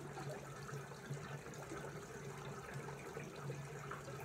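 Water running and trickling in a garden koi pond, over a steady low hum.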